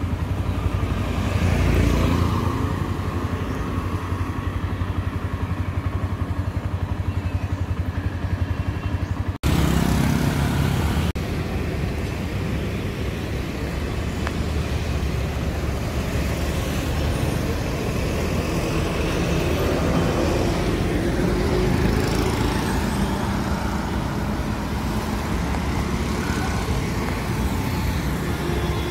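Motorcycle engine running with road traffic around it, a steady fast low pulse under a haze of road noise, breaking off for an instant about nine seconds in.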